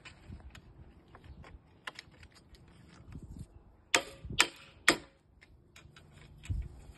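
Rubber mallet knocking three times, about half a second apart, on the corner joint of a white aluminium frame profile, tapping the corner piece home. Light clicks and ticks of the profiles being handled before and after the blows.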